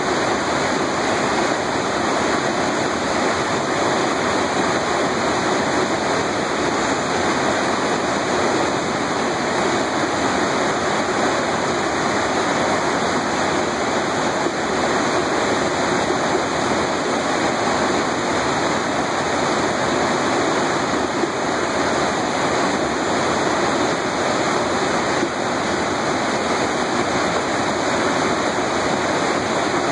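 Mountain stream rushing over rocks, a steady, even rush of water with no break.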